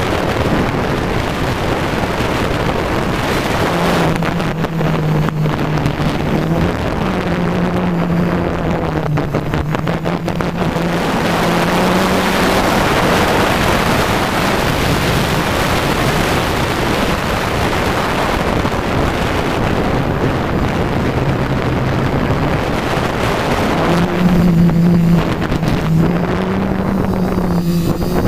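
F450 quadcopter's four D2830 1000kv brushless motors spinning 9x4.7 Gemfan props, heard from on board: a steady rush of wind and prop noise with a low drone that steps up and down in pitch as the throttle changes. Wind buffets the microphone.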